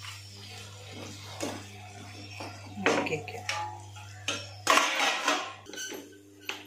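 Wooden spatula stirring thick pickle in a non-stick frying pan: scattered scrapes and knocks against the pan, busiest about two-thirds of the way through. A steady low hum runs underneath and stops suddenly at about the same point.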